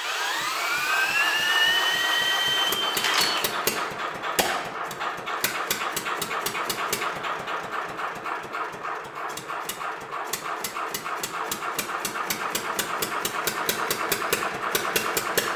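Cordless drill spinning up the flywheel of a Willys Knight single-cylinder sleeve-valve engine with a rising whine. About three seconds in, the drill lets off and the engine catches and runs on its own with a rapid, even knocking beat through its short open exhaust pipe.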